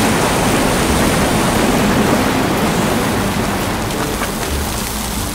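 Strokkur geyser erupting: a loud, steady rush of the water column and of the spray raining back down, easing off slowly.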